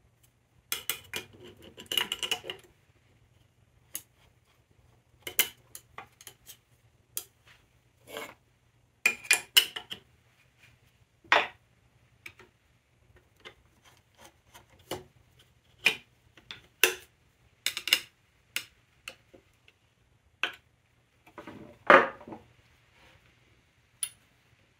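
Irregular metal clicks, clinks and light scrapes of the steel and cast-iron parts of a Stanley No. 5 hand plane being reassembled and adjusted with a screwdriver. There is a louder clatter near the start and another near the end.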